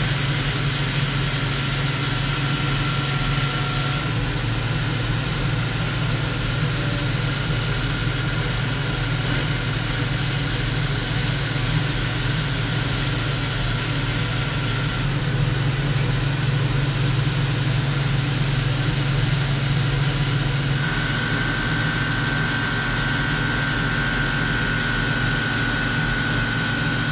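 Half-inch Kennametal HARVI III end mill roughing Monel 400 in a CNC mill: a steady high cutting whine over the hiss of flood coolant, stepping up a little in pitch about three-quarters of the way through. It is a full-depth pass at a light 5% radial step, and sounds absolutely perfect: a stable cut.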